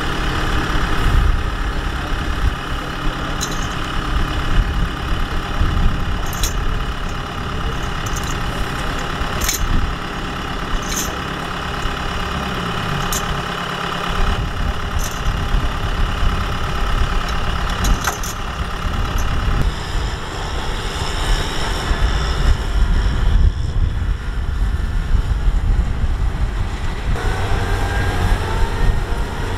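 Kubota M6040SU tractor's diesel engine running steadily, with a few short sharp metallic clinks in the first half as a tow chain is handled at the rear wheel. Near the end the engine pitch rises as the tractor pulls away through the mud.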